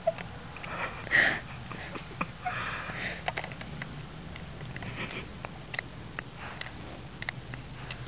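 Sleeping Boston terrier puppy making a weird clock-like ticking: short clicks, irregularly spaced, about one or two a second, with snuffling breaths through its nose in between.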